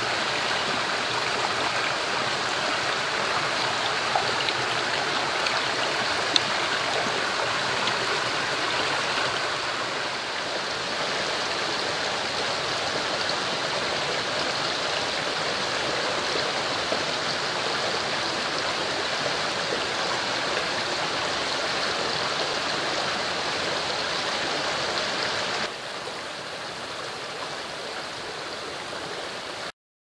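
Mountain stream running over rocks: a steady rush of water, with two faint sharp clicks a few seconds in. It drops a little in level about 26 seconds in and cuts off suddenly just before the end.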